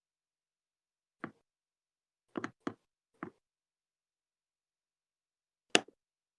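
A handful of short, sharp clicks and knocks, four of them in quick succession a little past a second in and one louder knock near the end. They come from a mechanical keyboard switch being pushed and worked into its slot on the keyboard.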